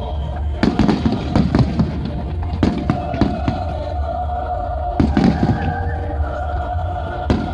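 Aerial firework shells bursting overhead in an irregular string of sharp booms and crackles, several close together near the start and again about two thirds of the way through.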